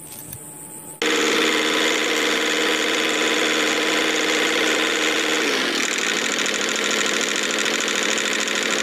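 A homemade toy tractor's steady, engine-like running drone starts abruptly about a second in as the tractor drives off. Its lower pitch dips slightly about five and a half seconds in.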